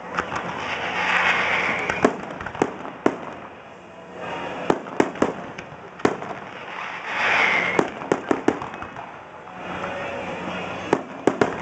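Fireworks display: irregular sharp bangs and pops, several coming in quick clusters around the middle and again near the end.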